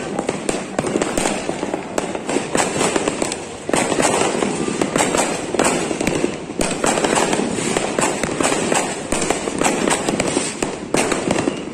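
New Year fireworks and firecrackers going off in a dense barrage: many rapid, overlapping bangs and crackles with hardly a gap, briefly easing a little before 4 s in.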